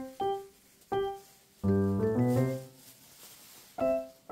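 Background piano music: single notes, each dying away, then a fuller chord about two seconds in, a short lull, and more notes near the end.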